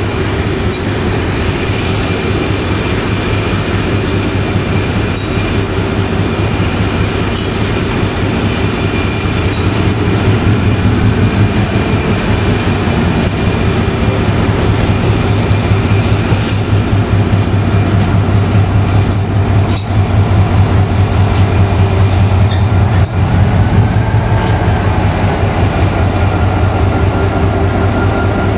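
NIR 111 Class diesel locomotive's GM EMD two-stroke engine running steadily while shunting, with the wagons it moves rolling on the rails; it grows louder about a third of the way in as the locomotive draws near. A brief squeal from the wheels is heard near the end.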